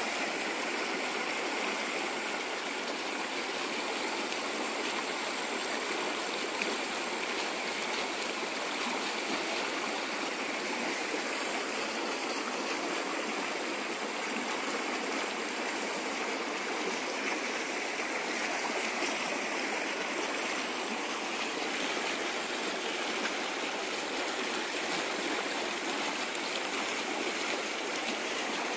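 Steady rushing of a flowing river's current, an even wash of water noise with no breaks.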